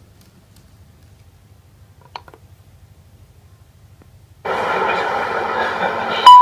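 Faint low hum, then about four and a half seconds in a loud recorded electric-train running sound cuts in suddenly, with a steady whine over it. A loud steady tone starts just before the end.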